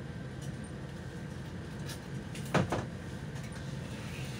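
Inside a Solaris Urbino 18 articulated city bus on the move: a steady low rumble of the running bus, with a sharp double knock, a rattle or clunk from the cabin, a little over halfway through.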